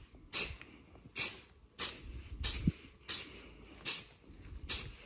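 Aerosol spray-paint can firing seven short bursts of hissing spray, about one every 0.7 seconds, as orange base coat is sprayed onto MDF pieces.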